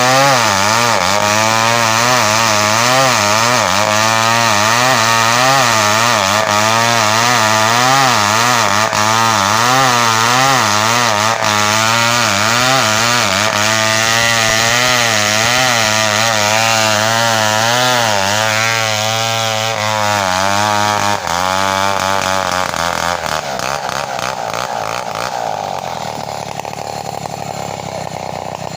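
Home-built chainsaw cutting through kapur (camphor) wood, its engine pitch swinging up and down about once a second as the chain loads in the cut. About three-quarters of the way through, the engine speed falls away and the sound drops to a lower level.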